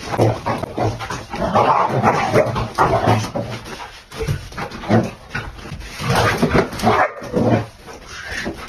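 A dog barking and yipping in short, rapid bursts while it play-fights, jumping at a person's hands.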